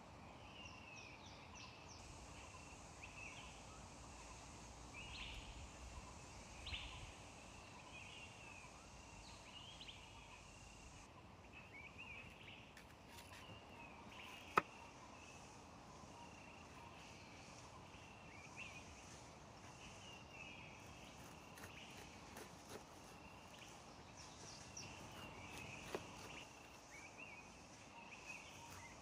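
Faint outdoor ambience: short, high chirping calls from small wildlife repeating all through, over a low hiss. A single sharp click about halfway through.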